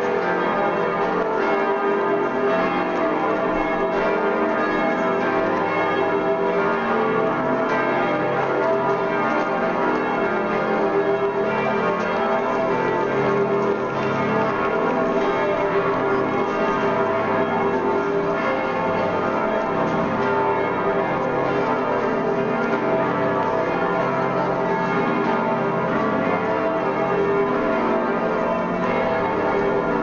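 The bells of Munich's Frauenkirche cathedral ringing together in a continuous, overlapping peal, rung in mourning for the death of former Pope Benedict XVI.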